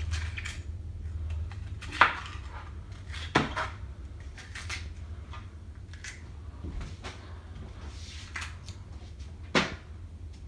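Chef's knife slicing a red bell pepper into strips on a plastic cutting board: irregular knocks of the blade against the board, with sharper ones about two seconds in, a second and a half later, and near the end.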